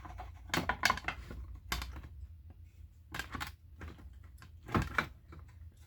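Scattered light clicks and knocks of a plastic fridge divider and items being handled and set in place, a handful of separate taps spread over several seconds.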